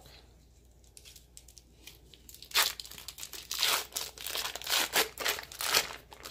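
Foil wrapper of a block of cream cheese being torn and peeled open, crinkling in irregular bursts from about two and a half seconds in.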